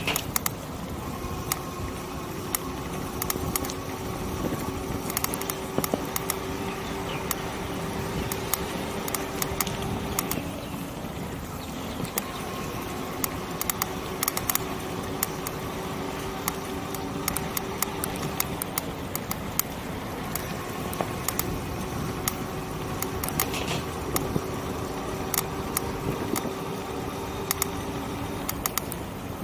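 An electric bike rolling along a paved path: a low rumble of tyres on paving under a faint, steady electric-motor whine that drops away for a second or two a couple of times, with frequent sharp clicks and rattles from the bike and its handlebar-mounted camera.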